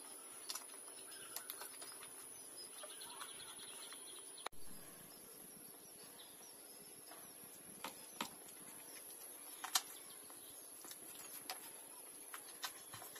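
Puppies suckling at their mother's teats: faint wet sucking with scattered smacking clicks, a few of them sharper around the middle.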